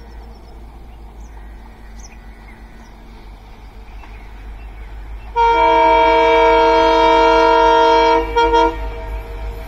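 Indian Railways EMD diesel locomotive approaching with a low rumble, then sounding its horn: one long, loud blast about five seconds in, lasting nearly three seconds, followed by two short toots.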